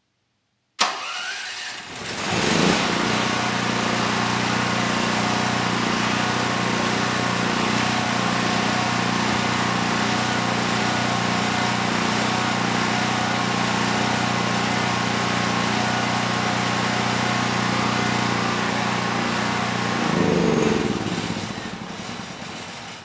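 Generac GP7500E portable generator's single-cylinder engine spun by its electric starter, catching within about two seconds and then running steadily at governed speed under a light load; it is producing power at about 120 V and 60 Hz. Near the end it winds down to a stop.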